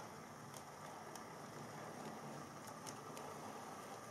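Model diesel locomotive running along the track: a faint, steady motor hum with a few light ticks.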